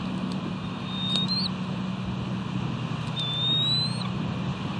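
Steady wind and surf noise on an outdoor camera microphone, with a low hum underneath. Two thin, high whistled notes stand out: a short one about a second in and a longer, slightly rising one a little past three seconds in.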